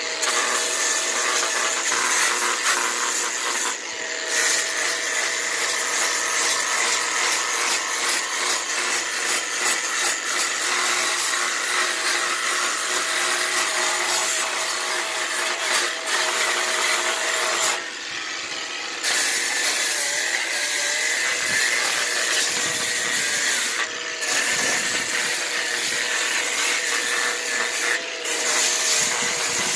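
Ryobi adjustable-speed right-angle tool spinning a red bristle brush against cedar logs, a steady motor tone under the hiss of bristles scouring the wood. A backpack dust-extraction vacuum runs along with it. The scrubbing drops off briefly a few times as the brush comes off the wood, longest about 18 seconds in.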